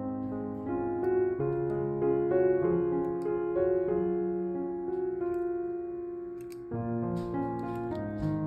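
Background piano music, slow and gentle, with notes changing about every half second.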